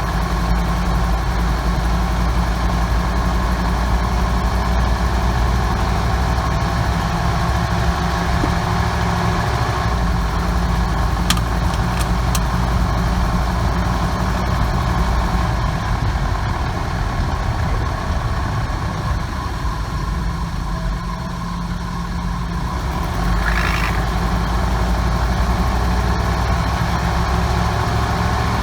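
1998 Ford 5.4 two-valve V8 running in a van, a steady engine noise with a couple of short clicks partway through and a slight dip in level near the middle. The noise under investigation is a cracked exhaust manifold between cylinders 6 and 7, a noise heard on cold startup that goes away after a few minutes of driving.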